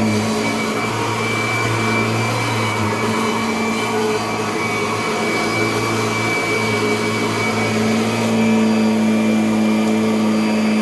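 Kirby upright vacuum cleaner running steadily with a motor hum and a high whine, its pitch and loudness shifting slightly as it is pushed about, a little louder from about eight seconds in.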